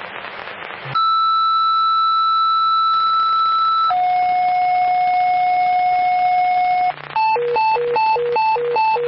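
Fire-dispatch radio alert tones over a scanner. After about a second of radio hiss comes a two-tone sequential page: a steady higher tone for about three seconds, then a steady lower tone for about three seconds. A hi-lo tone follows, two pitches swapping back and forth a few times a second, the usual signal that sets off firefighters' pagers before a dispatch.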